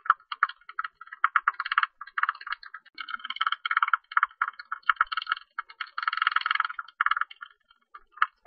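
Tube-nosed bat calling: rapid, buzzy chattering made of fast clicks, in bursts of about half a second to a second with short gaps between.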